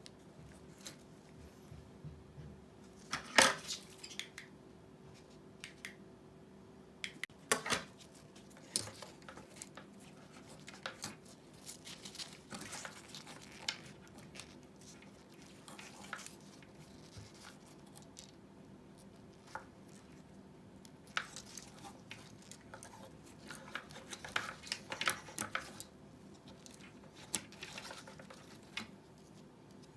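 Small hand tools and parts being handled during a headset repair: scattered sharp clicks and metallic clinks, the loudest about three and a half seconds in and again near eight seconds, with a busier run of clicks in the last third, over a faint steady hum.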